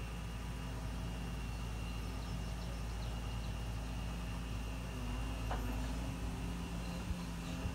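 Excavator's diesel engine running steadily while the machine works, a low even drone.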